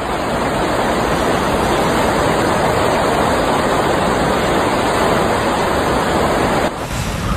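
Floodwater rushing fast down a narrow concrete-walled channel swollen by heavy rain, a steady, even rush of churning water. The sound changes abruptly shortly before the end.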